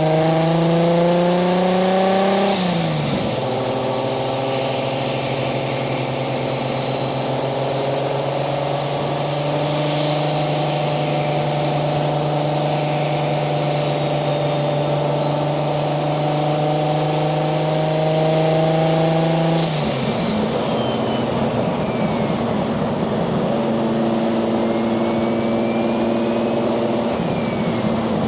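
Nissan 240SX's single-turbo 1JZ VVTi inline-six pulling up through the revs, then dropping sharply about two and a half seconds in. It then cruises at steady revs while a high turbo whistle rises and falls. About twenty seconds in the throttle comes off and the engine settles to lower revs.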